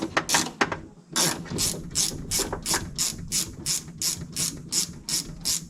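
Hand ratchet wrench clicking as it backs out the window-glass clamp bolts on a Ford Expedition door's window regulator. A few uneven clicks, then a steady run of about four clicks a second that stops near the end.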